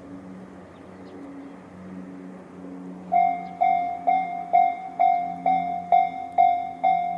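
Japanese railway level-crossing electronic warning bell, the Tobu Railway 'sound C' type, starts about three seconds in and rings at a steady pace of a little over two strikes a second. Each strike is a ringing tone that dies away. The crossing's warning has been triggered by an approaching train.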